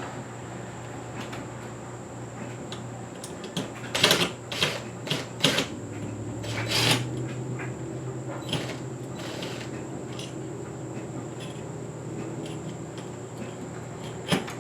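Clicks, knocks and clatter of ceiling fan parts being handled and taken apart, a cluster of them about four to seven seconds in and another near the end, over a steady low hum.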